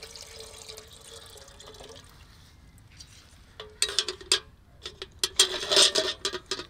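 Water running from a kitchen tap for about two seconds, then a run of loud, irregular splashes and clatters.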